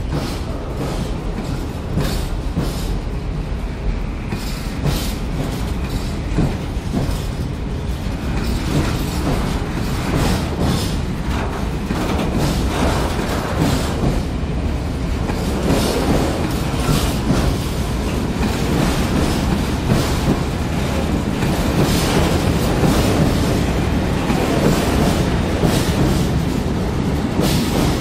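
Freight train of open-top gondola wagons rolling past close by: a steady rumble with repeated clatter of the wheels over the rail joints, slowly getting louder.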